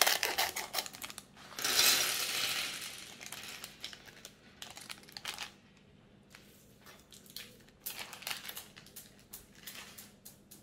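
Clear plastic parts bag crinkling as it is cut open with scissors and emptied, with a loud rustling rush about two seconds in as the LEGO pieces spill onto a wooden table. Then scattered light clicks and rattles of plastic pieces being spread out by hand.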